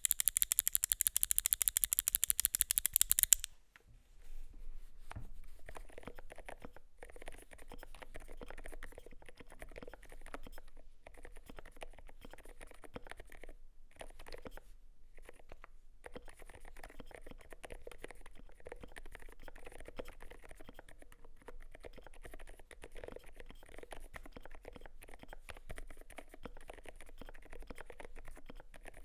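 Continuous fast typing on a Glorious GMMK Pro mechanical keyboard with lubed and filmed ZealPC Sakurio switches, a polycarbonate plate and XDA keycaps: soft, muted key clacks. A loud, rapid crackling noise comes before it and stops about three and a half seconds in.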